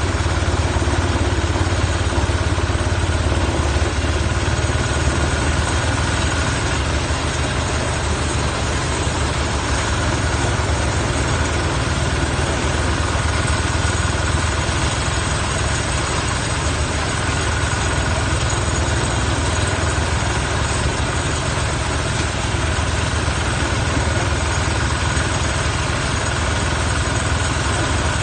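Engine of rice harvesting or processing machinery running steadily, a constant loud mechanical drone with a heavy low hum.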